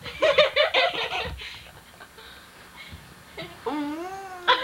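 A child giggling in a quick burst of laughter, then a drawn-out voice wavering up and down in pitch near the end.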